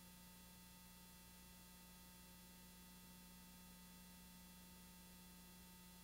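Near silence: only a faint, steady hum and hiss, with no other sound.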